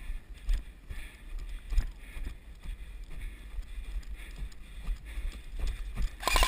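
Wind buffeting and irregular low thumps of movement on a body-worn camera microphone. Just before the end a loud, rapid rattle of about twenty pulses a second starts suddenly.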